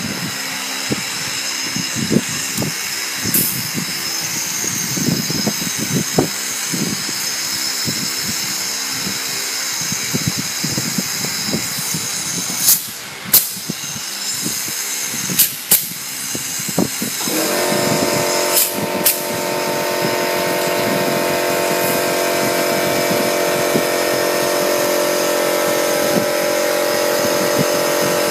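A steady machine drone that gets louder, with a stronger hum, about seventeen seconds in. Over it are light rattles of the steel wire mesh and three pairs of sharp clicks from a pneumatic hog-ring clip gun fastening the cage wire.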